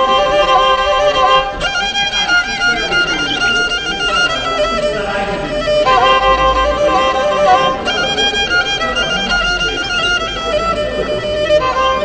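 Background music led by a violin playing held notes with vibrato.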